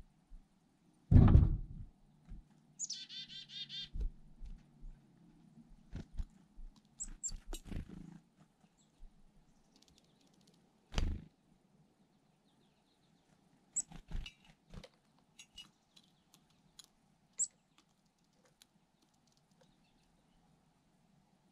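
Black-capped chickadees calling with short high chirps and, about three seconds in, a rapid run of repeated notes, mixed with several dull thumps, the loudest about a second in.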